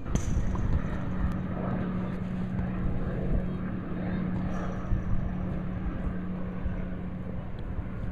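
A steady low hum at one unchanging pitch, starting just after the beginning, over outdoor background noise.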